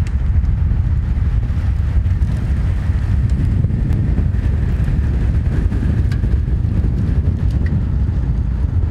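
Wind buffeting the microphone of a camera moving alongside a group of road cyclists: a loud, steady low rumble that cuts off suddenly at the end.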